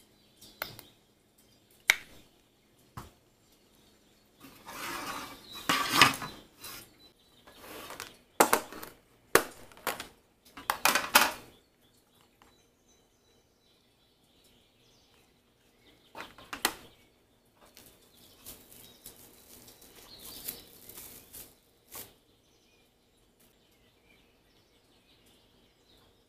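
Tabletop handling sounds while preparing food: sharp clinks and clicks and rustling bursts from sauce packets, small stainless steel cups and a plastic food container. The sounds come in a busy run over the first dozen seconds, then stop for a few seconds, then pick up again.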